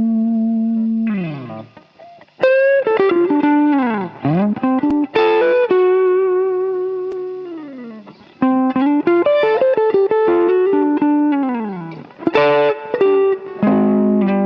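Solo electric guitar playing blues licks: several phrases of held notes and quick runs, with notes that bend and slide down in pitch and ring out between phrases.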